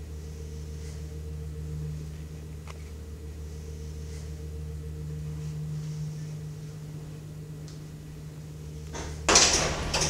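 A steady low hum, then about nine seconds in a loud, rattling clatter as a lift's sliding metal doors open.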